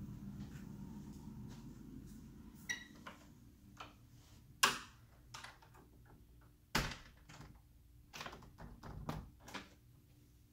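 A door being unlocked and opened: a click with a brief metallic ring a few seconds in, then a run of irregular knocks and thuds, the loudest two a little before halfway and about two-thirds of the way through. A low hum at first fades out by about two seconds in.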